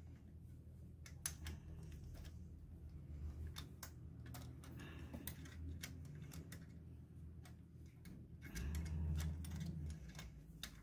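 Scattered light clicks and taps of hands and a small tool handling the plastic fittings of an LPG injector rail in a car's engine bay. A low hum runs underneath and grows louder for about a second and a half near the end.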